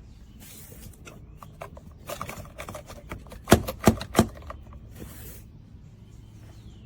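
Handling noise from golf cart seat belt hardware and the seat: a run of small clicks and knocks, then three sharp knocks in quick succession about midway, over a steady low hum.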